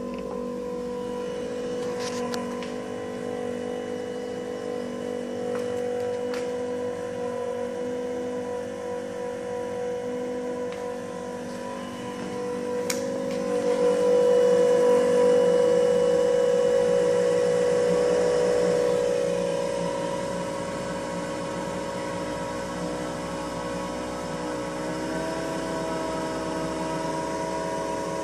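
Small electric blower fan running steadily, a hum of several steady tones, louder for a few seconds midway. Near the end its pitch drifts slightly as a PID controller varies the fan's duty cycle to hold a ping pong ball's height in the air column.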